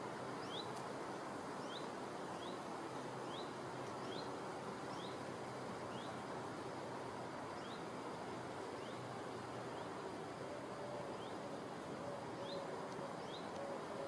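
A small bird calling in short rising chirps, about one or two a second, over a steady outdoor hiss.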